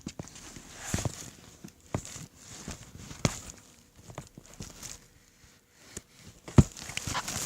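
Irregular knocks and handling noises, roughly one a second, with the loudest thud about two-thirds of the way through.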